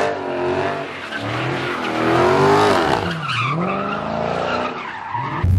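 Dodge Scat Pack with its 6.4-litre HEMI V8 doing donuts: rear tyres squealing and skidding on the pavement while the engine revs, the pitch swooping up and down as the car spins.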